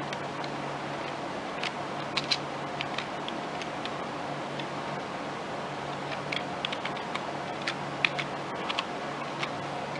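Computer keyboard keys being pressed: a dozen or so sharp clicks, irregularly spaced and some in quick clusters, over a steady low hum.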